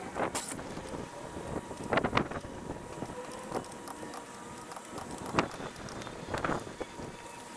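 Metal tools and the floor jack clinking and knocking at a car's front wheel, about half a dozen separate sharp clinks, two of them close together about two seconds in.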